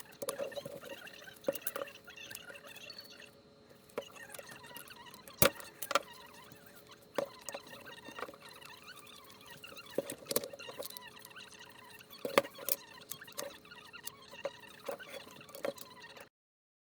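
Irregular sharp clicks and knocks from hand work on a Volkswagen Touran door lock, with faint squeaky chirps between them; it stops abruptly near the end.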